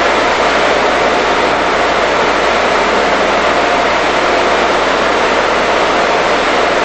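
Steady, even machine noise of a computer room, with cooling fans and equipment running and no separate knocks or rhythm.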